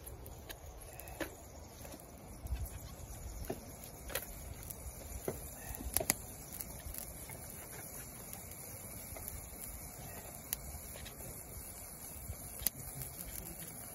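Small wood fire crackling, with scattered sharp pops at irregular intervals, alongside the light scrape and tap of a knife cutting potatoes on a wooden board.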